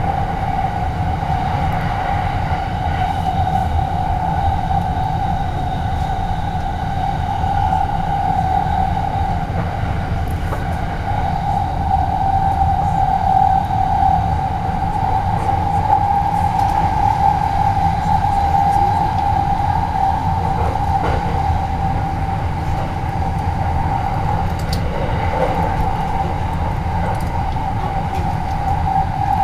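Electric train running: a steady low rumble with a steady whine held throughout.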